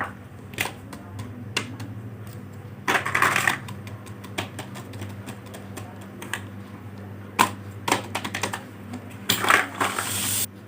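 Small plastic fidget toys being handled: irregular clicks and clatters, with a longer rattling rustle about three seconds in and again near the end, over a steady low hum.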